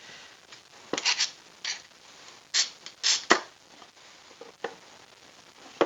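Handling noise: about eight short scrapes and light knocks, irregularly spaced, as things are moved and shifted by hand.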